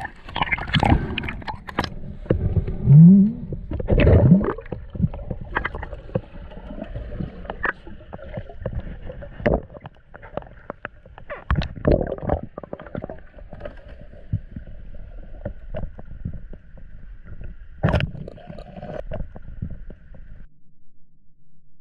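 Water heard through an underwater camera housing as a snorkeler dives and swims: gurgling and sloshing water with many clicks and knocks, and a faint steady hum underneath. The water noise drops away about 20 seconds in.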